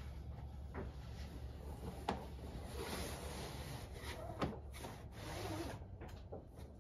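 Cam strap being pulled over a kayak hull: faint rubbing and sliding of the strap, with a few light knocks.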